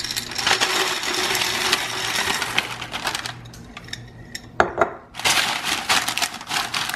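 Ceramic pie weights pouring out of a glass jar onto parchment paper in a tart pan: a dense rattle of many small clicks for about three seconds. After a short lull with a couple of clicks, the weights rattle again as hands push them around to spread them out.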